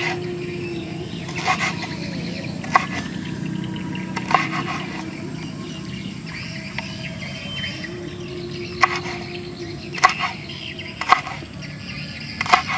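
Cleaver chopping red chilies on a wooden cutting board: single sharp knocks of the blade on the board, irregular, about one every second or two, over steady outdoor background noise.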